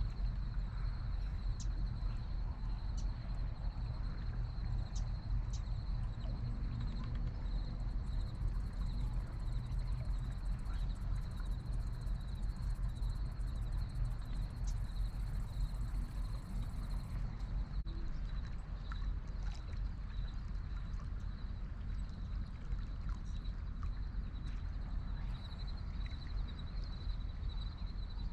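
Steady rush of river water, with a low rumble of wind on the microphone and a thin, steady high tone above it.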